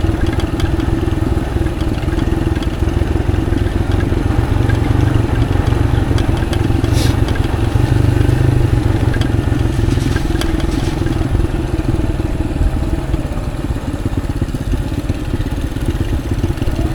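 Motorcycle engine running at a steady pitch while riding on a dirt track, with road noise and a few short clattering knocks about seven and ten seconds in.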